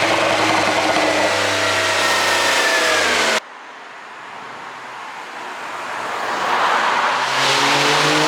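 Porsche 911 Carrera 4 GTS twin-turbo flat-six running under load, its pitch falling slightly, until the sound cuts off abruptly about three seconds in. The engine then swells back in from quiet and grows louder, as the car approaches and revs again near the end.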